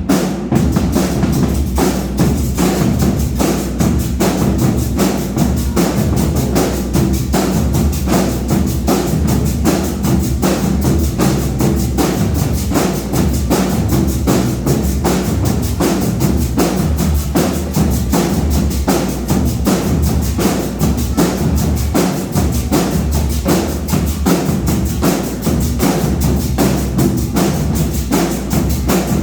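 Marching band playing, carried by a fast, even drum beat of snare and bass drums.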